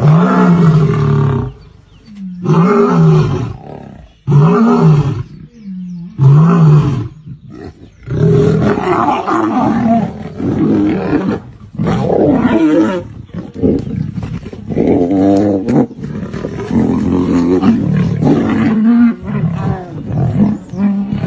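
Big cat roaring repeatedly, each call about a second long and rising then falling in pitch: several separate roars at first, then a denser, almost unbroken run of calls.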